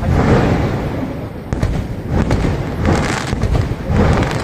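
Fireworks going off in quick succession: dense crackling broken by heavier bangs about a second apart.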